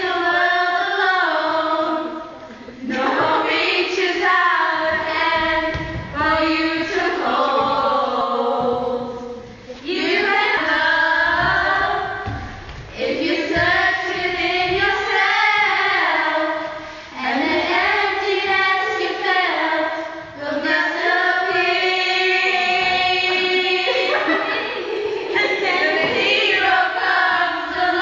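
A group of girls singing together in high voices, in sung phrases with short breaks every few seconds.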